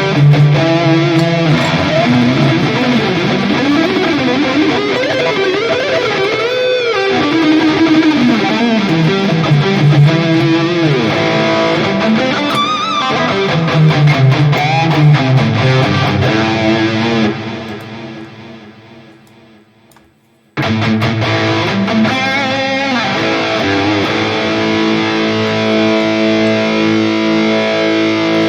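Electric guitar played through a NUX MG-30 modeling unit with distortion and delay, a lead line with bent notes. The sound fades away about two-thirds of the way in, then starts again abruptly with long held notes.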